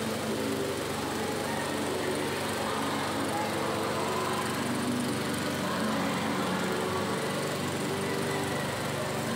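A small motor or engine droning steadily, with people talking over it.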